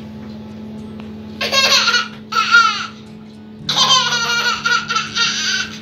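A baby laughing in high-pitched peals: two short bursts, then a longer one of about two seconds.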